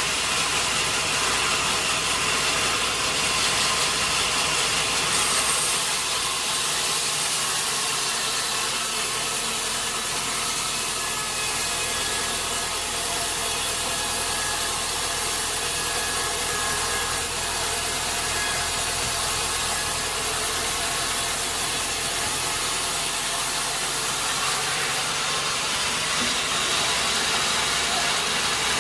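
Sawmill saw cutting through a large log: a steady, dense hiss of blade in wood over the running machinery, the cutting sound growing fuller about five seconds in and easing near the end.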